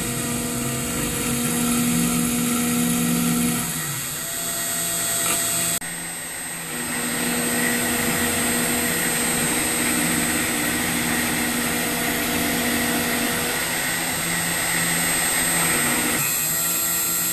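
CNC router spindle running at about 7,200 RPM, its 7/64-inch bit milling a grid pattern into an aluminum plate: a steady machine whine mixed with the noise of cutting metal. About six seconds in the sound shifts abruptly, then runs on steadily.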